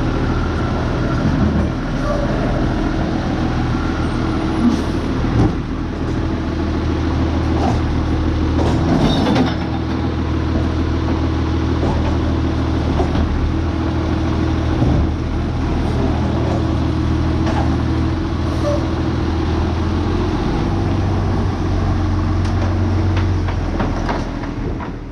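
Diesel garbage truck running steadily, with a few knocks and clanks over the engine.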